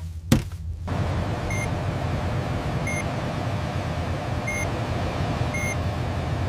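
Four short, high electronic beeps from a cockpit avionics test console, spaced a second or so apart, over a steady low hum. A sharp click comes just before the hum sets in.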